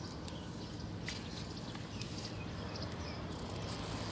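Steady low hum of a distant diesel train engine over quiet open-air ambience, with a few faint clicks about a second in.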